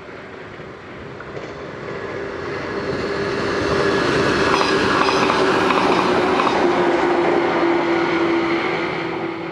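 JR 413 series electric multiple unit running past at speed, its noise building to its loudest about four to seven seconds in and then fading, with a steady hum through the loudest part that drops a little in pitch as it goes by.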